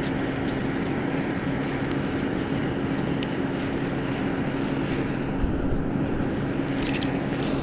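Wood fire burning in a metal fire pit: a steady, even rush of noise with a constant low hum running under it, and a few faint crackles.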